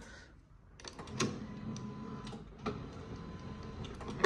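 Badminton racket being strung on an electronic stringing machine during the tie-off: string drawn through the frame and handled at the machine, with a faint steady machine hum and a few sharp clicks of the clamps and tension head.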